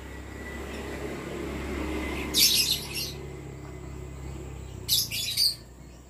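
Lovebirds calling: two short bursts of high-pitched chattering, one about two seconds in and another near the end.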